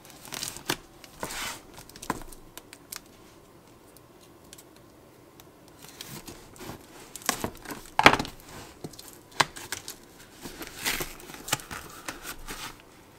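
Cardboard box being slit open with a knife and its flap pulled open: scattered scrapes, rips and crinkles of cardboard and tape, quieter for a few seconds in the first half, with the loudest sharp rip about eight seconds in.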